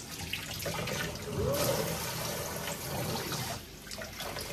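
Kitchen faucet's pull-down sprayer running, spraying water over a wet puppy's coat in a stainless steel sink: a steady rush of spray that eases briefly about three and a half seconds in.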